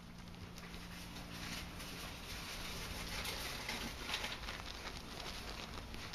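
Dwarf hamster gnawing and tugging at a cotton pajama sleeve: a fast stream of faint scratchy ticks of teeth and claws on cloth.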